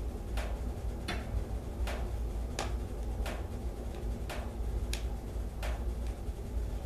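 Wood fire burning inside a closed soapstone wood stove: sharp pops and snaps from the burning logs, about one every second and somewhat uneven, over a low steady rumble.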